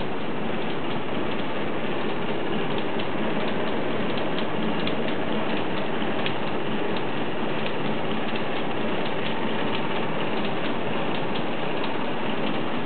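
Voronezh K8040 hot forging press running under power: a steady mechanical noise scattered with many light, irregular clicks and ticks, with no distinct heavy strokes.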